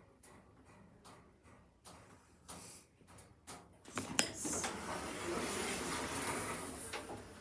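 Lift's sliding doors moving: a couple of sharp clicks about four seconds in, then about three seconds of steady rushing noise, fading near the end.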